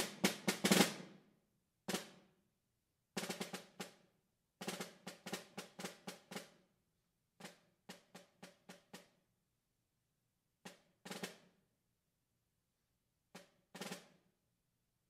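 Solo concert snare drum played with wooden sticks: clusters of short strokes and brief rolls separated by pauses, thinning out and growing softer, with a last few quiet strokes near the end.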